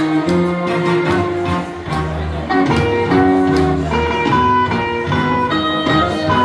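Karaoke backing track playing an instrumental break with no singing: a melody of held notes over a steady beat.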